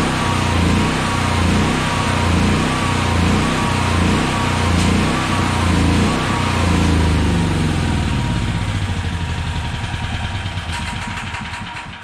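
Honda EB6500X generator engine running warm, then slowing with its firing strokes spreading out, and dying out near the end. It is running the carburetor bowl dry with the fuel line shut off.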